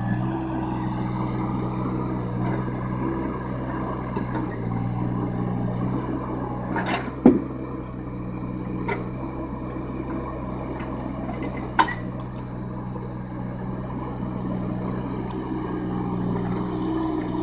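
John Deere 17D mini excavator's engine running steadily as its hydraulics work the bucket and thumb, the engine note shifting slightly under load. Two sharp knocks of logs striking each other, about seven and twelve seconds in.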